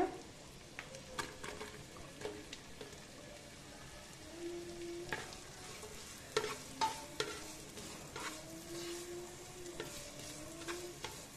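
Chopped onion with garlic and ginger frying in butter in a nonstick pot, a soft steady sizzle. A spatula stirs and scrapes the pan, giving scattered clicks and knocks throughout.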